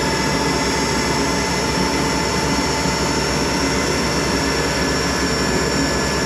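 Monarch 10EE toolroom lathe running steadily at top spindle speed on its electronic variable-speed drive. The headstock and drive give an even, high whine that holds its pitch, over a constant low hum.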